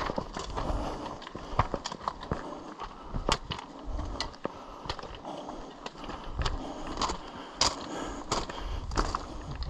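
Footsteps on loose stones and gravel: an irregular run of crunches and sharp clicks.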